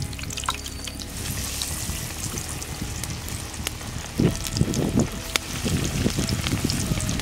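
Flour-coated chicken pieces sizzling and crackling in hot oil in a steel kadai as they are dropped in by hand. From about four seconds in there are heavier low bursts as more pieces go into the oil.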